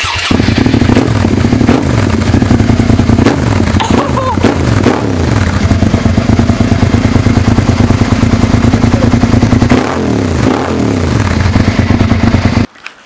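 Suzuki SV650S V-twin running through a Remus Revolution exhaust with the baffle removed, giving an open, deeper exhaust note. It idles and is revved several times, rising and falling in pitch, and cuts off abruptly near the end.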